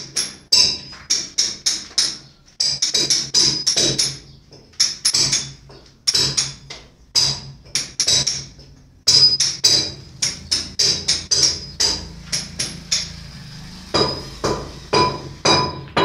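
Hammer blows on metal at a construction site, ringing sharply, in quick irregular runs of several strikes a second with short pauses, over a low steady hum.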